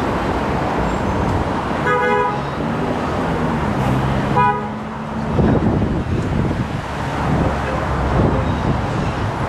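A vehicle horn honks twice, a short beep about two seconds in and another about two and a half seconds later, over a steady rumble of wind on the microphone and street traffic.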